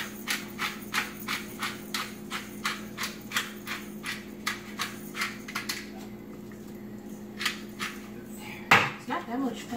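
Twist-top spice grinder being turned by hand over raw meat: a quick, even run of dry grinding clicks, about four a second, that slows to a few scattered clicks after about six seconds, with one louder knock near the end.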